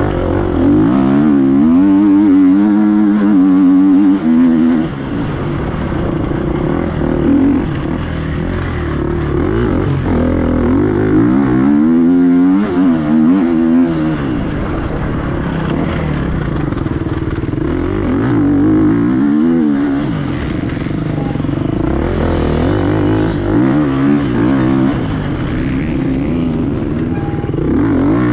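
Enduro motorcycle engine heard from on the bike, revving up and dropping back again and again as the rider accelerates, shifts and brakes through the corners of a dirt course.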